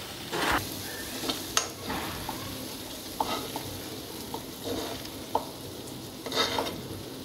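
A spoon scraping and tapping against a non-stick pan as cooked coconut-jaggery filling is scraped out into a bowl, in short irregular strokes over a faint steady hiss.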